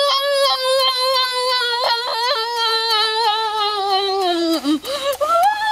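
A child's long, drawn-out vocal cry, held for about four and a half seconds and sliding slowly down in pitch, then a second cry that rises and falls near the end.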